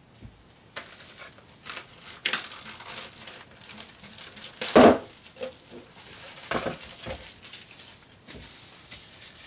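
Plastic packaging bags crinkling and rustling as they are handled and opened, in irregular bursts, with one louder crackle about five seconds in.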